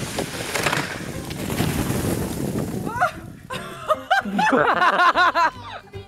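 Snow sliding off a roof in a mass, a rushing noise for about three seconds, then a person's voice in quick repeated cries.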